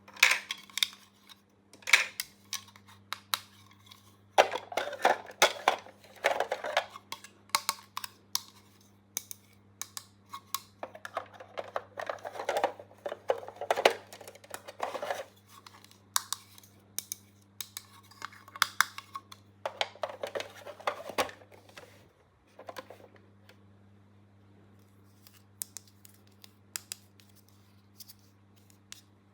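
Small plastic toy pieces and their packaging being handled: irregular clicks and taps, with several stretches of rustling, over a steady low hum.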